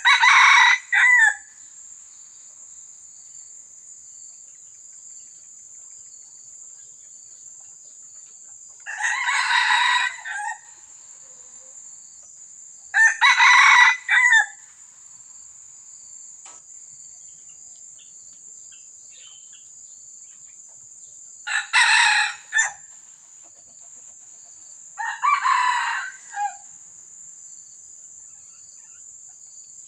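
Red junglefowl rooster crowing five times, each crow short and clipped, spaced several seconds apart, over a steady high-pitched insect drone.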